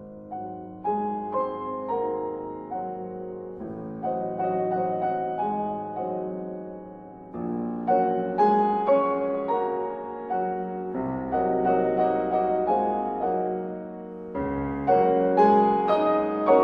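Background piano music: a gentle piece of struck notes and changing chords.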